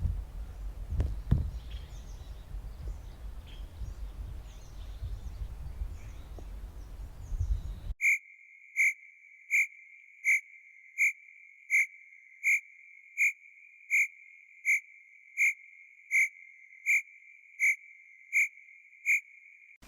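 Animal sound effects. First comes a low rumbling outdoor recording with a few knocks and faint high chirps. Then, about eight seconds in, a single clear high-pitched chirp repeats steadily about every three-quarters of a second against silence.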